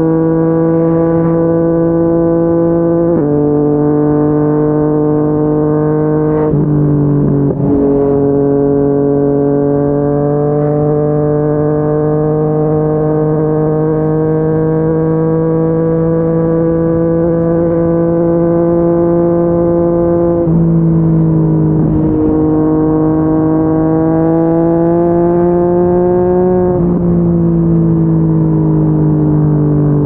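Yamaha MT-09's inline three-cylinder engine, breathing through a Yoshimura R55 slip-on exhaust, pulling at highway speed. Its pitch climbs slowly through long pulls and drops abruptly about four times at upshifts.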